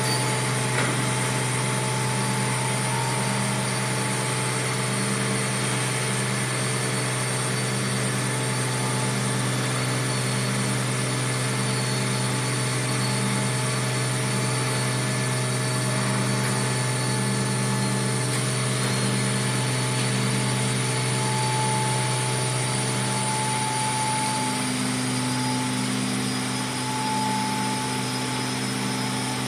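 Vacuum molding production line running: a steady machine drone made of several constant tones, with a faint low pulsing repeating about every second and a half.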